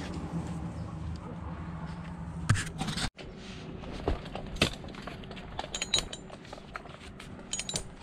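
A steady low hum that cuts off abruptly about three seconds in. It is followed by scattered clicks, clinks and scrapes as a tree climber's rope, gear and gloved hands rub and knock against the smooth eucalyptus trunk.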